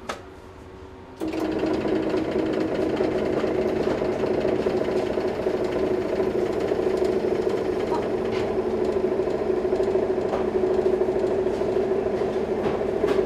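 Sponge-cake slicing machine running: a steady mechanical hum with a few held tones starts abruptly about a second in as the cake feeds through the horizontal wire cutter.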